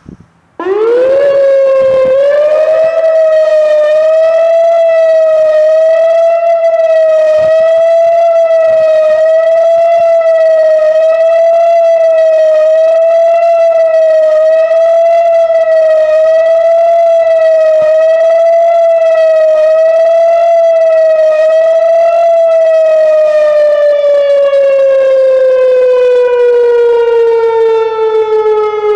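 Whelen WPS-2740 electronic outdoor warning siren sounding its monthly test: it starts about half a second in, rises quickly to a steady, loud tone with a slight regular wavering, then begins a slow fall in pitch about 22 seconds in.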